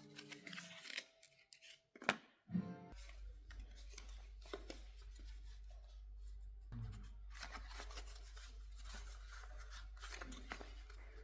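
A few quiet plucked guitar notes, then scissors snipping and paper being handled over a steady low room hum, with small clicks and rustles scattered through.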